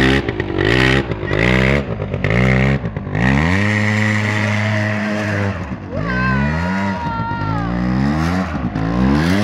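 Aeon Revo 100 ATV's small engine revving in short surges, then held at higher revs for a few seconds, easing off and rising again as it is ridden.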